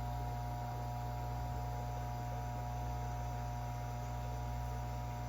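Steady electrical hum, a low drone with a few faint higher steady tones above it and nothing else.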